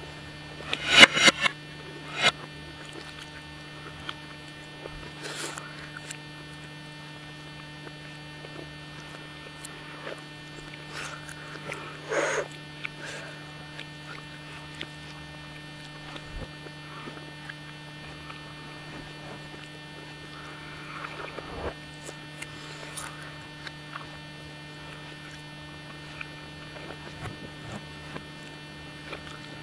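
A steady low hum with scattered clinks and scrapes of a fork and knife on a spaghetti plate, played backwards. The loudest clinks come about a second in and again around twelve seconds.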